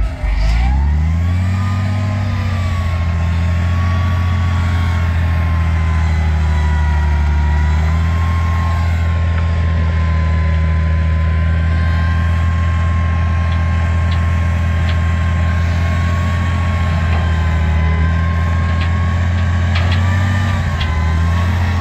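Dump truck engine revved up about a second in and held at a steady raised speed while the hydraulic hoist lifts the loaded bed, with a whine that follows the engine speed.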